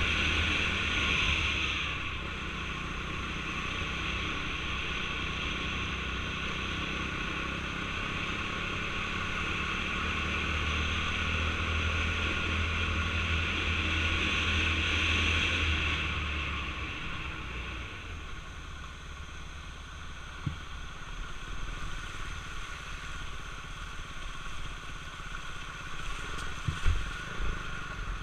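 KTM 390 Duke's single-cylinder engine running under way on a rough dirt road, pulling harder at the start and again from about ten to sixteen seconds, then easing off to a lower, quieter note. A few sharp knocks come through in the second half, the loudest just before the end.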